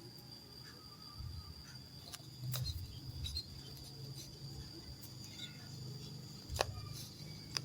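Insect sounds: a steady high-pitched trill over low rumbling, with three sharp clicks, about two and a half seconds in, six and a half seconds in and near the end.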